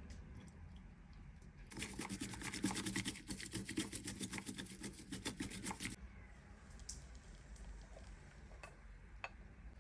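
Bamboo matcha whisk (chasen) whisking tea rapidly in a bowl, a quick run of brushing strokes for about four seconds that starts and stops abruptly, with a few small clicks before and after.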